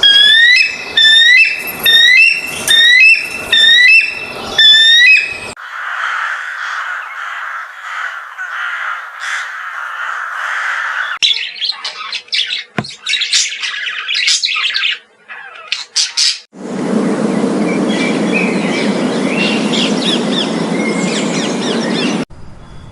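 A run of different bird sounds: first about six loud rising squawks, roughly one a second, then twittering and chirping, and for the last few seconds chirps over a steady rushing noise that cuts off sharply.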